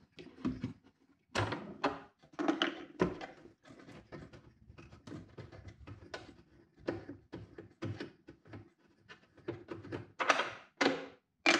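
Irregular clicks, taps and knocks of hand tools and fasteners against the plastic and metal housing of a benchtop thickness planer as it is taken apart, with a few louder clatters near the end.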